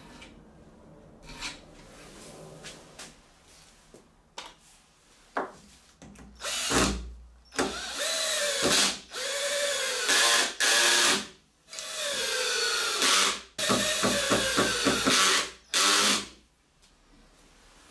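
Cordless drill driving screws into plywood in several runs of a second or two each, starting about six seconds in, its pitch dipping and recovering within each run. Near the end comes a quick string of short trigger bursts. Before that there are only light knocks and clicks of handling.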